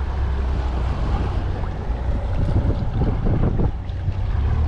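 Boat motor running steadily, with wind buffeting the microphone and water rushing past the hull.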